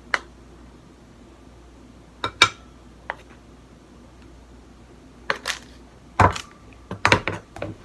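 A spoon clicking and clinking against a plastic cornstarch canister and a plate as powdered cornstarch is scooped out. A few separate clicks come in the first half, then heavier knocks from about six seconds in as the canister is set down on the tabletop.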